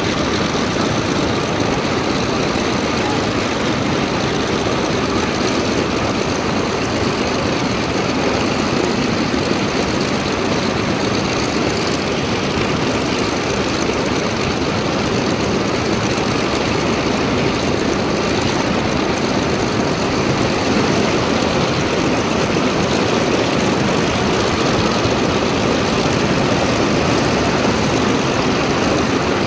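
Grumman F8F Bearcat's Pratt & Whitney R-2800 radial engine and propeller running steadily and loud on the ground.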